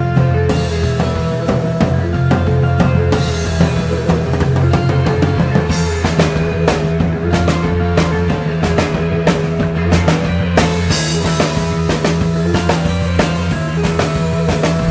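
Background music: a band track with a drum kit keeping a steady beat over a bass line.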